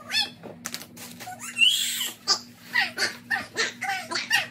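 Toddler babbling and squealing in short high calls, with one louder squeal about a second and a half in. Diaper and wipes packaging rustle and crinkle alongside.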